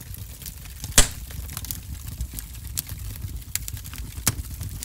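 A person chewing a mouthful of instant ramen noodles close to the microphone, with scattered wet mouth clicks and a sharp click about a second in.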